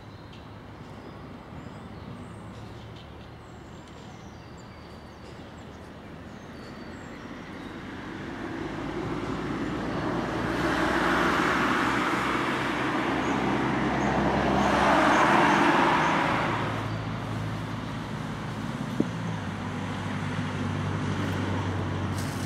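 Gotha tramcar running along the track: the rumble and rattle of its wheels on the rails builds up, peaks twice and then eases off, over a low steady hum. A single sharp click sounds near the end.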